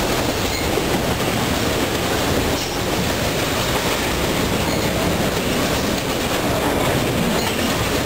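Freight train of autorack cars rolling past: a steady, unbroken noise of steel wheels running on the rails.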